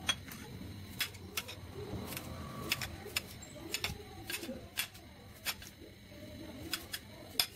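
Kitchen knife slicing a cucumber on a ceramic plate: a string of sharp clicks, about two a second and unevenly spaced, one for each cut.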